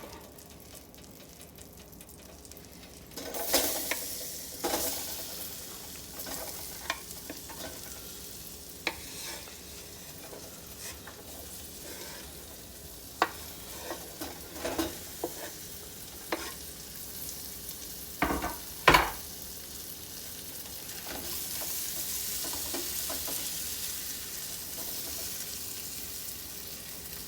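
Onions sizzling in butter in a pan as they are stirred, with scattered clacks and scrapes of the utensil against the pan, the loudest pair about 18 to 19 seconds in. The sizzle swells near the end.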